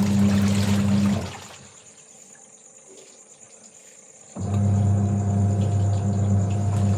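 An electric motor hums with water rushing, stops about a second in, and starts again abruptly about four seconds in. Insects trill steadily behind it throughout.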